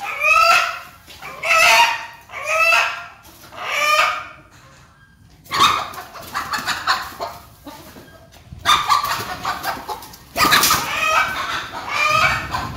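Chickens squawking in alarm as they are chased to be caught: loud calls about one a second for the first four seconds, then a stretch of scuffling with more squawks, and a loud burst of squawking near the end.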